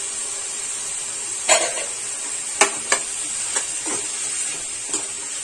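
A steel spoon stirring carrots, capsicum, peas and onion sautéing in oil in a kadhai: a steady sizzle with about six scrapes and knocks of the spoon against the pan.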